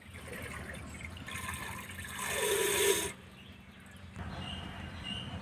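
A cupful of sugar poured into water in a clay pot: a hissing, splashing pour that builds over about two seconds and stops suddenly.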